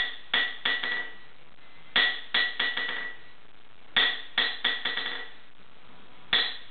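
A hammer strikes the face of an old steel anvil, about 135 years old, in four bursts about two seconds apart. Each burst is a hard blow followed by a few quicker, lighter taps, and each blow leaves a short, clear metallic ring. The hammer is being bounced on the face to test the anvil's rebound and ring, the signs that it is properly hardened.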